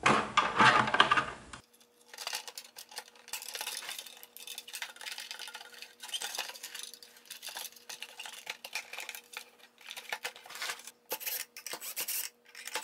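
Clicks, scrapes and rattles of hard plastic and metal parts being handled as a car stereo is fitted into a speaker cabinet. The first second and a half is louder, and after that the clicks come in scattered clusters over a faint steady hum.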